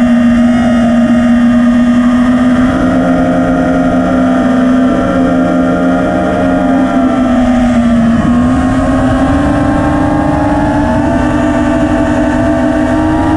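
FPV quadcopter's electric motors and propellers whining loudly, the pitch holding steady, dipping about eight seconds in, then climbing again as the throttle changes. Recorded by the action camera mounted on the drone, with a rushing noise underneath.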